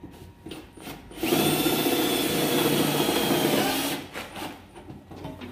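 Power drill running in one steady burst of about three seconds, starting a little over a second in and stopping about four seconds in, worked on the sheet-metal housing of an exhaust fan.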